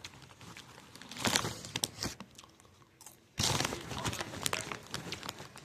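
Someone chewing Skinny Pop butter popcorn close to the microphone: irregular crunches, growing louder and denser about three and a half seconds in.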